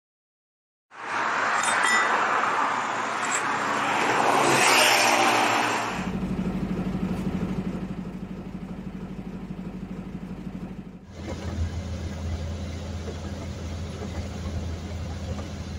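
A loud rushing noise for the first few seconds, then a truck engine running with a steady low hum heard from inside the cab. About ten seconds in it changes to another truck driving along a highway, engine and road noise heard from the cab.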